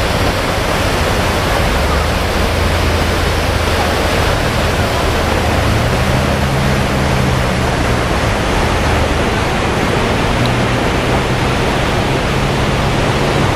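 Muddy floodwater pouring over a washed-out road edge and rushing past as a torrent. It makes a loud, steady rushing.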